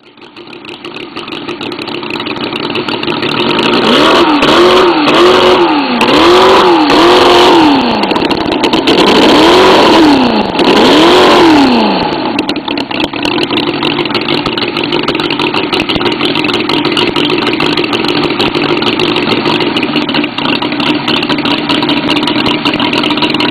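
Small kids' quad engine coming up to speed, then revved in about six quick rising-and-falling blips over several seconds before settling into a steady run.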